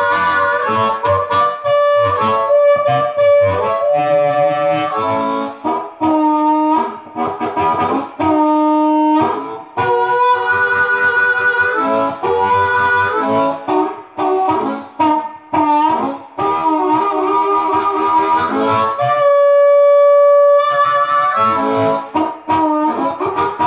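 Hohner Blues Harp harmonica in A played through a vintage Piezo DX-29 harp microphone into a small tube amp, giving an amplified blues harp tone. It plays a run of quick, changing notes, with one long held chord near the end before the notes start again.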